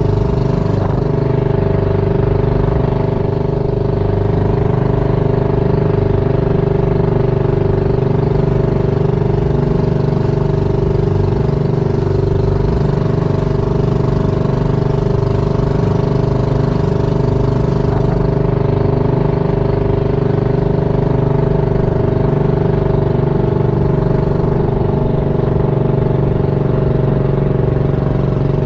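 Small fishing boat's engine running steadily at one speed while under way.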